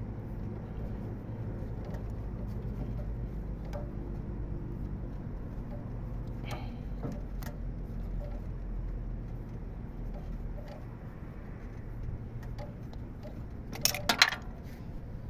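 Small tube cutter being turned around a copper pipe on an air-conditioner compressor, with a few faint clicks and a cluster of sharp clicks about fourteen seconds in, over a steady low hum.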